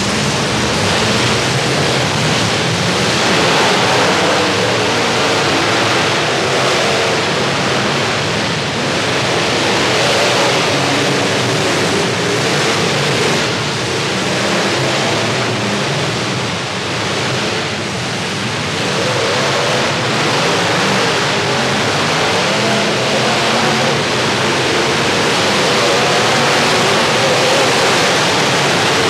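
Many demolition derby trucks' engines running and revving at once inside an enclosed arena, a loud, dense, echoing wash of engine noise whose pitch wavers as the drivers rev.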